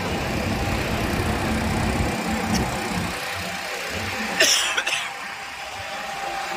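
Steady rushing noise with an engine running underneath, around burning fishing boats being hosed down, and one brief loud burst about four and a half seconds in.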